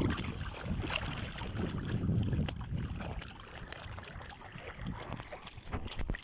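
Wind and sea noise aboard a small fishing boat, a steady rush with a low rumble and a few scattered knocks.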